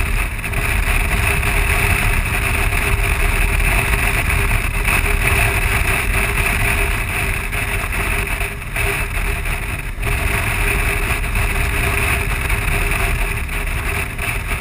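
Wind rushing over the microphone at road speed, over the steady running of the BMW R1200GS's boxer twin and tyre roar. The noise dips briefly twice about two-thirds of the way through.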